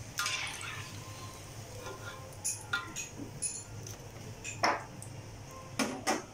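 Metal slotted spatula clinking and scraping against a wok as the last fried eggplant slices are lifted out of the hot oil, with a short burst of sizzling at the start. The clinks are scattered, the sharpest a little past the middle and again near the end.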